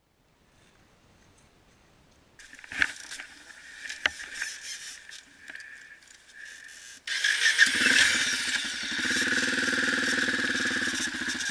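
Yamaha XTZ660 Ténéré motorcycle's single-cylinder engine. After a near-silent start and a few clicks over hiss, it turns suddenly loud about seven seconds in and keeps running steadily.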